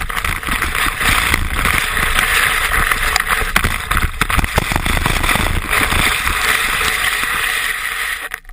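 Skis sliding over snow: a steady hissing scrape of the ski bases and edges, with wind rumbling on the microphone, dropping away near the end.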